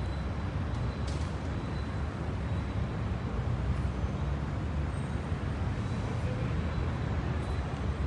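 Steady rumble of city traffic, with no single vehicle standing out.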